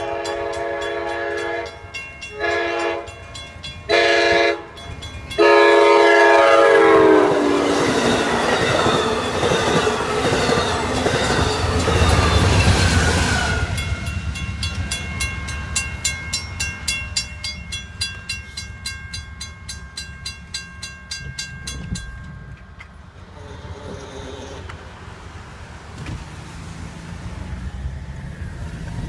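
Amtrak Surfliner locomotive horn sounding four blasts for a grade crossing, the last one long and dropping in pitch as the train goes by. The rush of the passing train follows, then the rapid ringing of the crossing bells, which stops about twenty-two seconds in.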